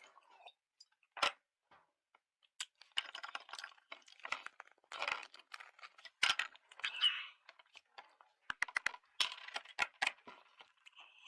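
Eating homemade cookies close to the microphone: irregular crisp crunches, crackles and chewing.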